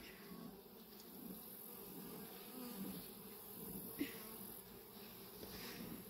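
Honey bees buzzing faintly around an open hive, with a single light tap about four seconds in.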